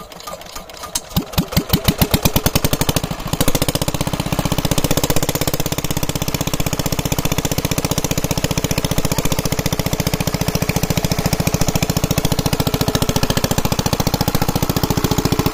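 Small single-cylinder diesel pump engine being hand-cranked: slow compression beats that speed up, then it fires and catches about three seconds in and settles into a steady running chug, driving an irrigation water pump.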